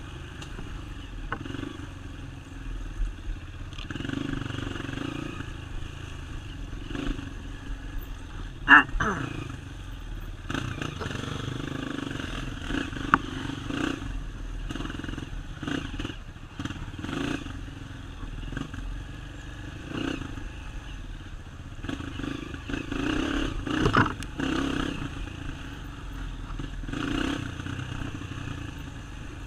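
Dirt bike engine running while riding a trail, its level rising and falling unevenly, with clattering and a few sharp knocks, the loudest about nine seconds in.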